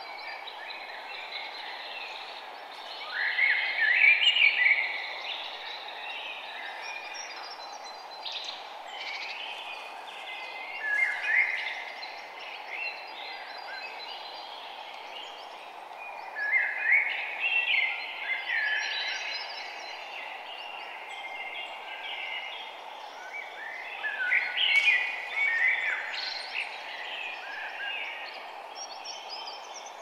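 Songbirds chirping and singing in bursts, with clusters of calls about 4, 11, 17 and 25 seconds in, over a steady low background hiss.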